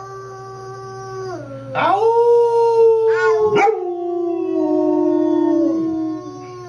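A dog howling: three long, drawn-out howls, each holding its pitch and then sliding down at its end.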